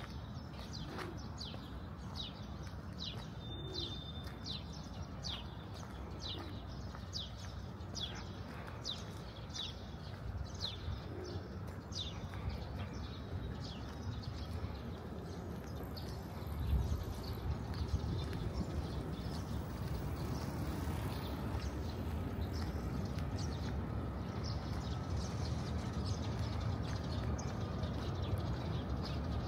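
City street ambience: a steady low rumble that grows louder about seventeen seconds in, under a long run of short, high, quickly repeated chirps.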